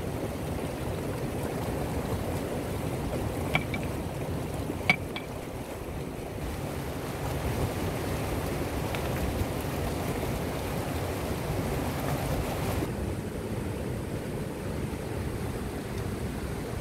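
A small mountain river rushing steadily, with low wind rumble on the microphone. Two short, sharp clicks stand out about three and a half and five seconds in.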